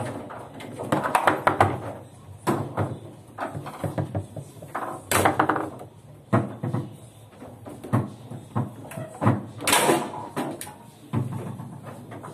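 Table football match in play: hard plastic players striking the ball and rods knocking against the table, an irregular run of sharp clacks and knocks with several loud bangs.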